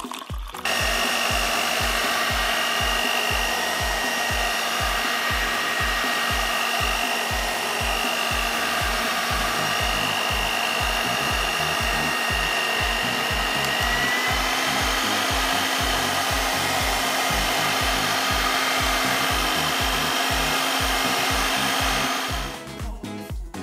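Electric countertop blender running continuously, blending fruit and water into a smooth red liquid. It starts about a second in, its whine steps up slightly in pitch about halfway through, and it stops near the end. A steady low music beat runs underneath.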